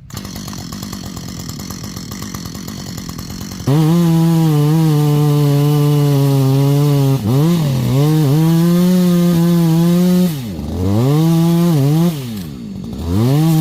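Two-stroke chainsaw running at low revs, then opened up to full throttle a little under four seconds in and held. Its revs drop and climb back a few times.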